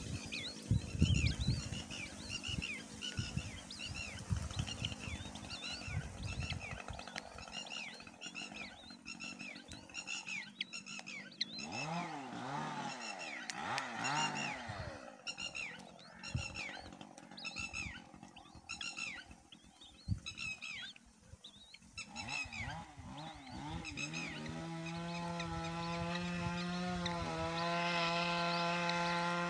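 Young birds of prey cheeping: a long run of short, high, downward-sliding chirps, several a second, as the nestlings beg while being fed. About two thirds of the way through, a steady engine-like drone sets in and takes over.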